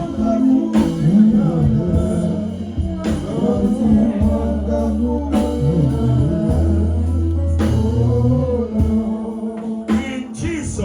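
Gospel music with singing over steady held low chords.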